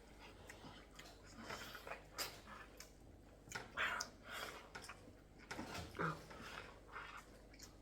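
Faint, irregular chewing and mouth sounds of people eating: wet smacks and clicks, with some breathing.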